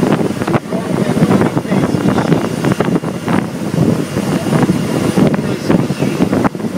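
Open motorboat running at speed, its engine noise mixed with heavy wind buffeting on the microphone and water rushing along the hull.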